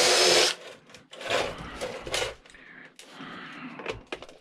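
Cordless drill/driver whirring in a loud half-second burst at the start, then several shorter, fainter whirs and clicks, as it is tried on screws the bit can't reach without an extension.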